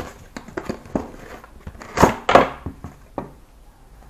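A cardboard box being opened by hand and a folded vinyl inflatable pillow pulled out of it: a run of cardboard scrapes, clicks and rustles, with two louder rustles about two seconds in.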